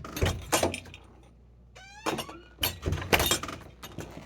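Front door being worked: two bursts of latch and handle clicks and rattles, with a short squeak between them.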